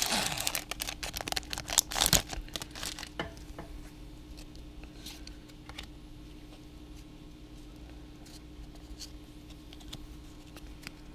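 Foil booster pack wrapper crinkling and tearing as it is opened, for about the first three seconds. After that, a few light ticks from the cards being handled.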